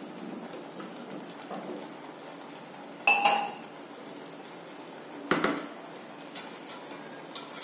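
A steel spoon and steel glass clanking against an aluminium pressure cooker: two sharp metallic clinks with a brief ring, about three and five seconds in, between a few lighter clicks.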